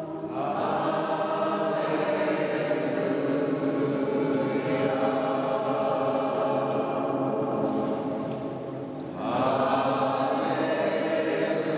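A choir singing long, held notes in a slow chant-like melody, swelling louder about nine seconds in.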